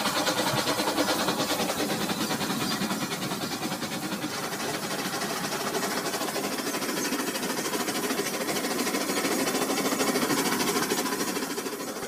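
Battery-powered toy train's small electric motor and plastic gears whirring steadily as it runs along plastic track.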